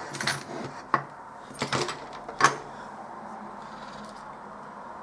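Small hard tools and parts handled on a workbench: four or five light clicks and knocks over the first two and a half seconds, the last one the sharpest. After that only a steady low background hum.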